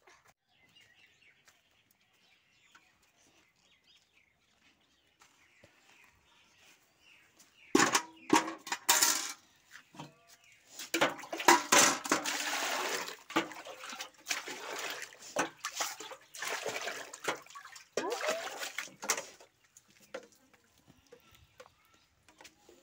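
Water poured from a metal pot into a metal bucket in several pours, splashing against the metal, from about eight seconds in until near the end. Before that, faint swishing of a broom sweeping a dusty floor.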